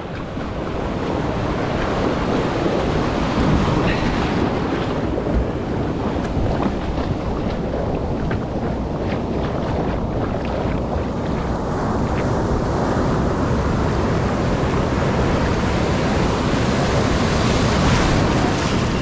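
Sea surf washing and breaking around a rubber inner-tube float, a steady rush of foaming whitewater heard close to the water, with wind on the microphone.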